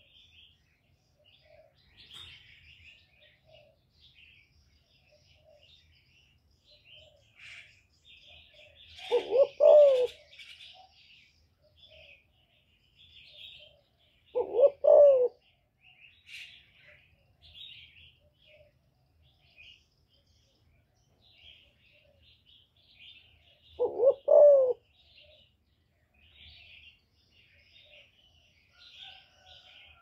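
Female spotted dove cooing: three short low phrases, each about a second long, spaced several seconds apart, with faint high chirping of small birds in the background.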